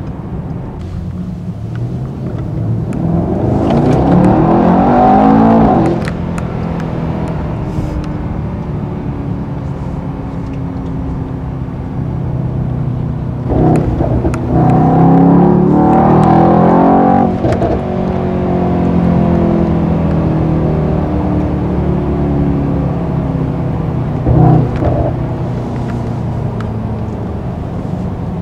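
Twin-turbo V8 of a Mercedes-AMG E63 S 4MATIC+ heard from inside the cabin, pulling hard twice under acceleration. Each time the engine note rises in pitch and then cuts off sharply. Afterwards it settles back, falling in pitch, with a short loud burst later on.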